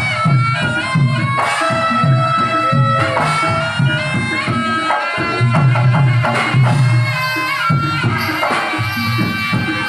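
Javanese jaranan gamelan music played live: drums beat a steady rhythm under a high, reedy melody that holds and bends its notes.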